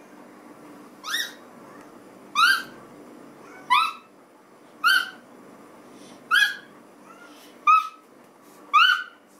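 Cat meowing, seven short calls that each rise in pitch, about one every second and a quarter.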